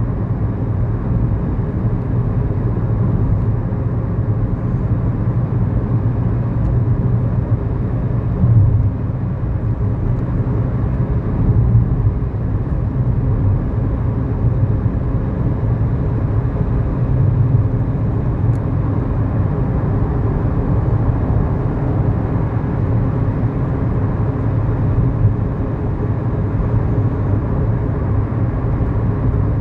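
2011 Kia New Morning's 999 cc four-cylinder SOHC engine running steadily with road noise, heard from inside the cabin. A few slight swells come and go in the engine's drone.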